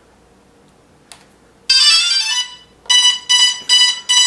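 DJI Phantom 2 powering up: a short electronic start-up tone, then four short, even beeps.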